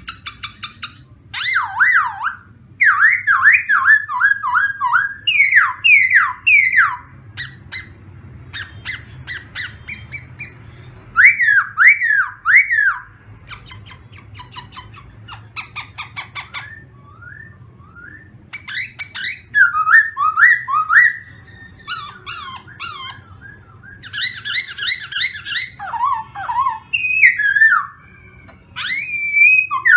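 Caged black laughingthrush (khướu mun) singing loud, clear whistled phrases. Each phrase is a quick run of repeated falling notes, and the bouts come one after another with short pauses between them.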